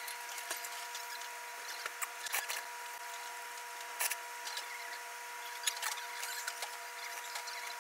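A person slurping ramen noodles, with a short burst about four seconds in, and scattered light clicks of chopsticks and a ceramic spoon against the bowl, over a steady background hum of several tones.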